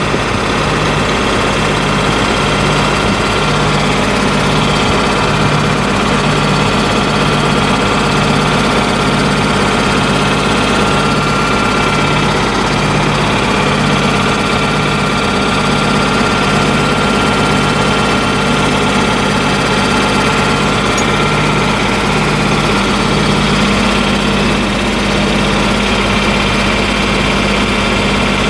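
1986 John Deere 4450's six-cylinder turbo diesel engine idling steadily, with a slow even throb about once a second.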